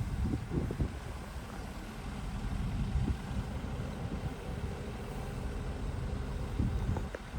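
Diesel engine of heavy construction machinery running with a steady, uneven low rumble.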